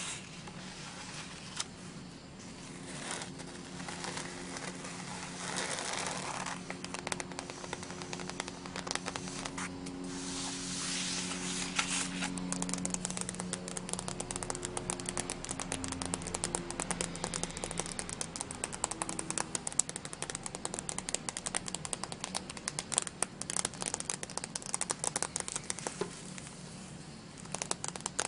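Sheets of glossy cardstock rustling and sliding as one is laid on the pile, then fingernails tapping and scratching quickly over a holographic foil sheet, a dense run of small crackly clicks from about halfway in.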